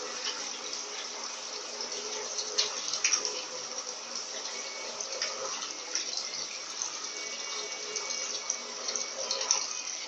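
Electrolux Turbo Economia 15 kg top-loading washing machine in its spin cycle: the loaded basket spinning fast and water being flung out and draining, a steady rushing noise with a faint high whine under it. A few sharp ticks stand out around three seconds in and once near the end.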